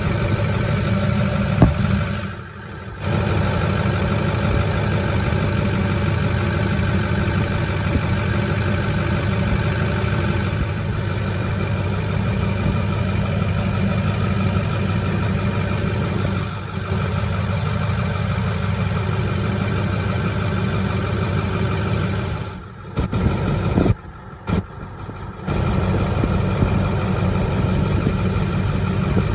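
Ford 6.4 L Power Stroke V8 diesel idling steadily, left running to bleed air out of the fuel system after a crank-no-start. The sound dips briefly a few times.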